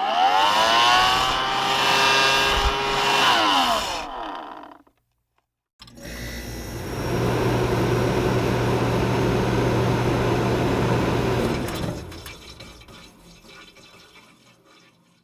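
Two phone alert tones, one after the other. First comes a swell of overlapping pitch glides that rise and level off, lasting about four seconds. After a short silence comes a steady rushing, water-like noise over a low hum that fades out over the last few seconds.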